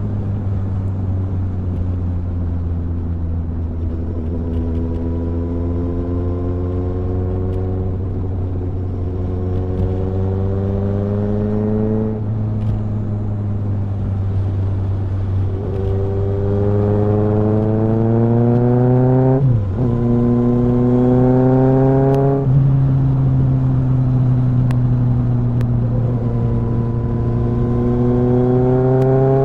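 Kawasaki ZXR motorcycle's inline-four engine pulling under way. Its pitch climbs steadily and then drops back several times as the rider shifts up through the gears.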